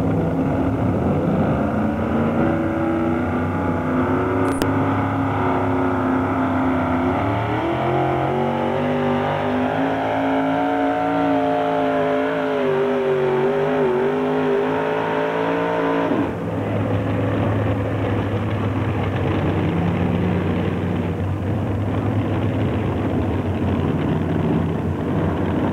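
Supercharged engine of a super modified 4x4 pulling truck running hard under load as it pulls the sled, its pitch rising and falling through the pull. About two-thirds of the way through it cuts off suddenly into another supercharged pulling truck's engine running at lower revs, with a few brief rises.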